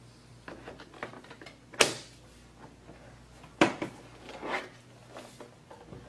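Plastic drive-bay cover being fitted onto the underside of a Dell laptop, then the laptop being turned over and set down: a string of light clicks and knocks, the two sharpest about two seconds and three and a half seconds in.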